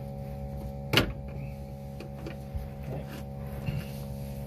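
A sharp click about a second in, then a few faint ticks, as pliers and a screwdriver work the plastic locking clip of the fuel pump module's wiring connector, over a steady hum.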